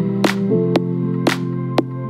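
Background music with a steady beat of about two hits a second over held notes.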